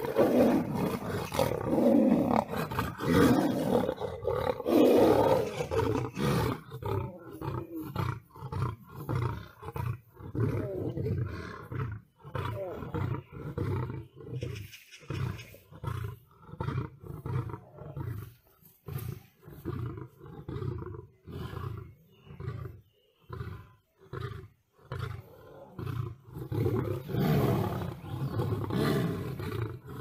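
Big cats, a lion and a tiger, roaring during a fight: dense, loud roaring for the first few seconds, then a long run of short repeated calls about one or two a second, building to heavier roaring again near the end.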